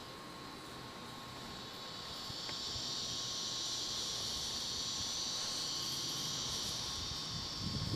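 Insects in the grass buzzing in a steady high chorus that swells about two seconds in and holds. A brief low thump comes near the end.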